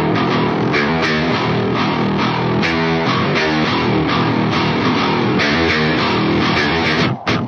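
Guitar-led music, loud and steady, that cuts out briefly near the end.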